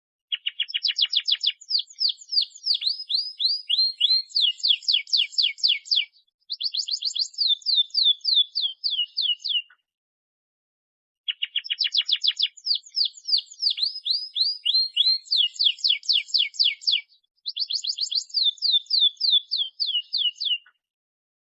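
Domestic canary singing a long song phrase of fast trills and rolls, with rapid runs of repeated notes that change speed and pitch. After a short pause about halfway through, the same phrase comes again.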